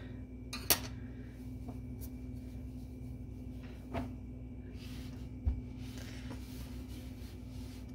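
Hands moving and smoothing a crocheted garment on a tabletop: a few light clicks and taps and a faint rustle, over a steady low hum.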